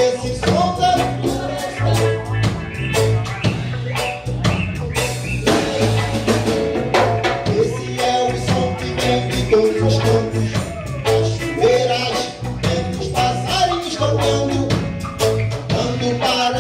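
Live reggae band playing an instrumental passage: a repeating bass line under drum kit and hand percussion, with a wavering melodic lead over the top.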